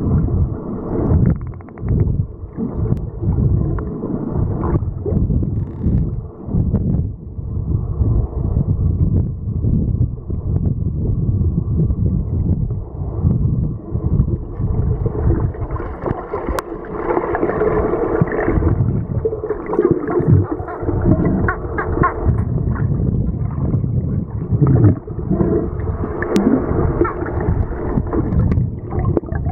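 Muffled, choppy water noise with gurgling, as picked up by a camera held underwater, its sound cut off above the low and middle range.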